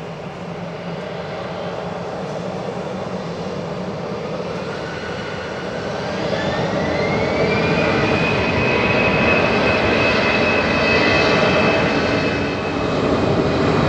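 Jet engines spooling up: over a steady engine rumble, a whine starts rising about four seconds in, levels off around eight seconds, and the engines then hold at high power, louder than before.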